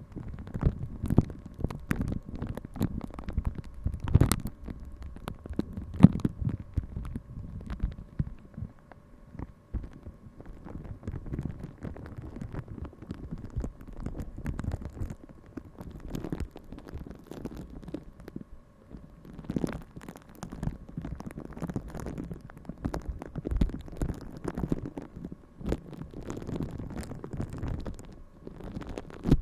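Close-miked ASMR handling sounds: irregular soft scratching and rubbing with scattered sharper taps and clicks, over a faint steady hum.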